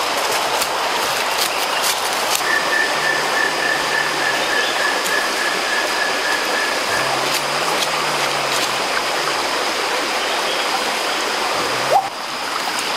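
Shallow rocky forest stream, water rushing steadily over the stones. A faint high trill runs for about four seconds in the first half.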